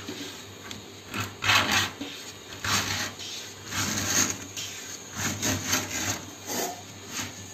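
A cutting point scraping around a thin sunmica laminate sheet, scoring out a small circle in a series of short, irregular scraping strokes, roughly one a second.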